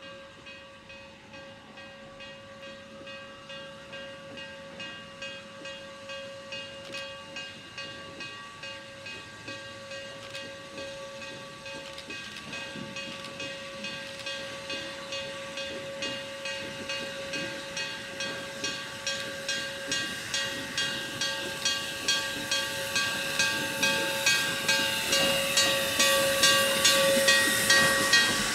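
Steam locomotive 7470, a 0-6-0 switcher, working under load as it draws near and passes: evenly spaced exhaust chuffs with steam hiss, growing steadily louder and a little quicker, over a steady whine.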